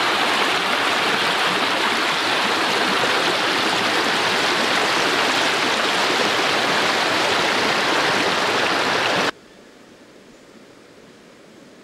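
Shallow stream rushing over stones, a loud steady rush of water that stops abruptly about nine seconds in, leaving only a faint background.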